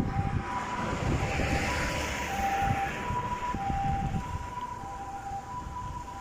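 A two-tone hi-lo emergency siren of the Japanese ambulance kind, alternating steadily between a higher and a lower pitch about every two-thirds of a second. Wind rumbles on the microphone underneath, with a hissing swell between about one and three seconds in.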